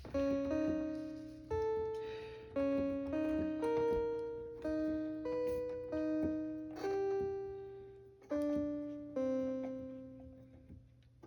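Yamaha PSR-31 portable electronic keyboard played slowly in a piano-like voice, note by note, each note sounding with its octave above and fading away before the next. It is a slow, halting melody of about a dozen notes.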